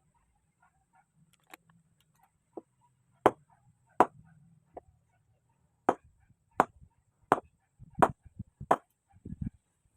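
A blade chopping into wood with repeated sharp strikes, sparse at first, then about one every 0.7 seconds and louder in the second half, ending with a few softer, duller knocks.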